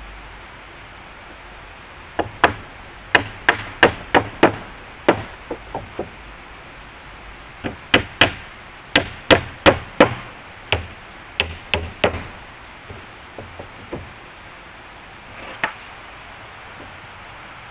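Hand tool chopping wood: runs of sharp blows, about two or three a second, with short pauses between runs, tailing off to a few light taps and one last blow near the end.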